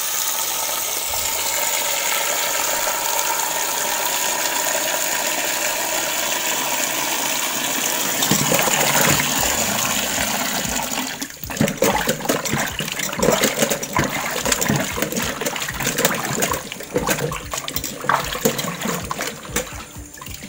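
Tap water pouring steadily into a steel bowl of cut elephant foot yam pieces in a stainless steel sink while hands stir them. About halfway through the flow stops, and hands slosh and rub the pieces in the bowl of water, washing off soil.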